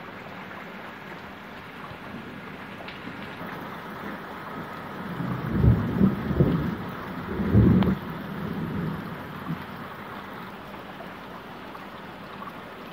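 Steady rain falling, with a low, rolling rumble of thunder rising about five seconds in. It swells in three loud surges, then fades away a few seconds later.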